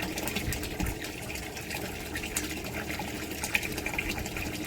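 Water pouring and splashing steadily back into a tank, driven by a submersible bilge pump circulating it.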